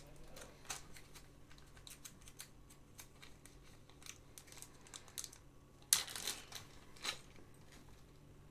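Small clear plastic bag crinkling and crackling as it is handled and opened. Light crackles run throughout, with a louder burst of crinkling about six seconds in and another just after seven.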